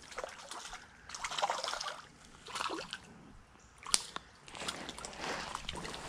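A hooked redbreast sunfish splashing at the surface of a shallow creek as it is played in to the bank, in irregular bursts of sloshing water, with one sharp click about four seconds in.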